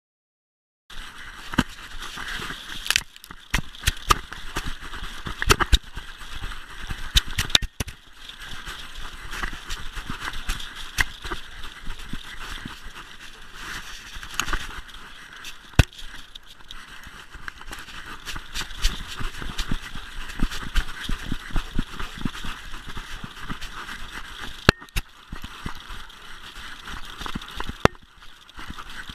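Jostling noise picked up by a GoPro on a moving German shepherd's collar, starting about a second in: a steady rustle with frequent sharp clicks and knocks as the collar mount bounces, and the dog's paws in snow.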